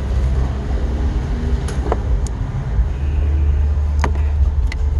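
Plastic cabin-filter cover being fitted back onto its housing: a few sharp clicks and snaps, the loudest about four seconds in, over a steady low rumble.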